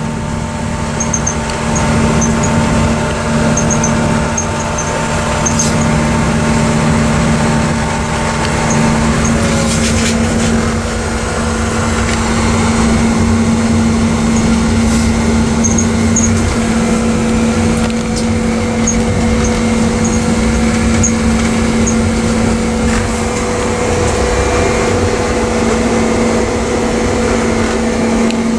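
Diesel-electric freight locomotive running, heard from inside its cab: a steady engine hum and rumble with a couple of steady whining tones above it. About nine seconds in, one of the tones stops and another drops slightly in pitch.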